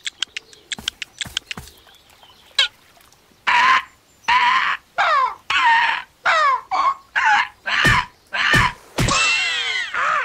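Cartoon sound effects: a quick run of about a dozen clicks, then a string of short, loud, high calls, each gliding down in pitch, about one every two-thirds of a second, ending in a longer call.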